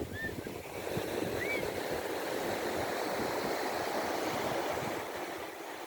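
Sea surf washing in: a wave's rush swells about a second in, holds, and eases off near the end.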